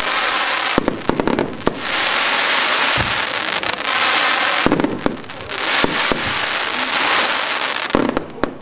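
A 100-shot fan fireworks cake firing: stretches of hissing as the shots climb, broken by clusters of sharp cracks from launches and bursts, about a second in, near 3 s, around 5 and 6 s, and near the end.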